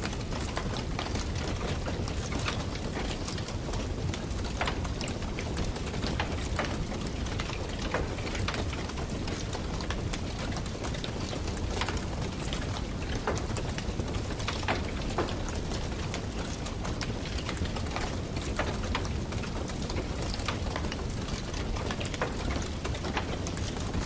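Wood campfire crackling: a steady hiss with many irregular sharp pops and snaps, over a low rumble.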